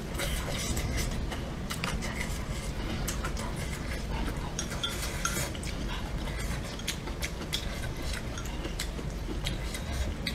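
Chopsticks clicking and scraping against a hot-pot container as food is picked out, with scattered small clicks of eating, over a steady low hum.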